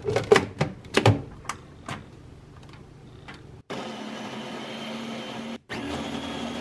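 A few sharp clicks, then the Babymoov Nutribaby+ baby food maker's blender motor starts abruptly with a steady whir, cuts out for an instant and runs again, pulse-blending strawberries into a puree.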